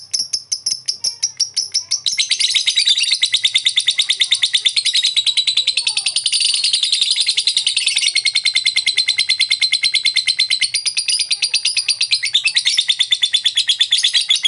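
Lovebird calling in a quick series of sharp separate ticks, about seven a second, the 'ngetik' call. About two seconds in it breaks into a long, unbroken, rapid chattering trill, the 'ngekek panjang' that lovebird keepers prize.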